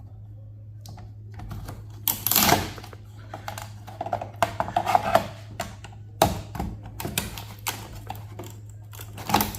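A small circuit board is forced off a server chassis by hand, making clicking, rattling and scraping of metal and plastic parts. There is a loud scrape about two seconds in, followed by a run of quick sharp clicks. A steady low hum runs underneath.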